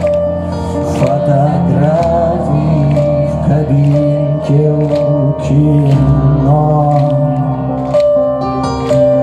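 Live rock band music with keyboards and a steady beat, a male voice holding long sung notes over it.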